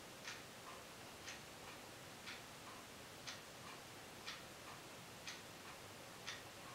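Faint, steady ticking at exactly one tick a second, with a fainter, lower tick between each pair, like a clock.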